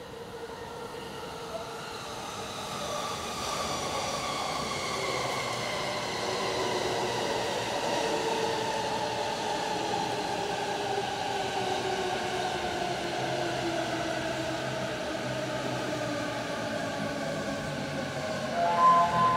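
JR East E233 series Keihin-Tohoku Line electric train pulling into the platform and slowing down. Its motor whine falls steadily in pitch over a rolling rumble, growing louder as it draws alongside, with a louder cluster of steady tones right at the end.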